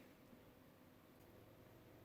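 Near silence: faint room tone with a low electrical hum.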